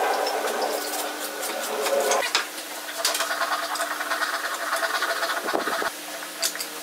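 Wooden folding-chair frame pieces being handled and pivoted on a workbench: wood rubbing and sliding with light clicks and knocks, in two stretches with a short pause about two seconds in, over a steady background hum.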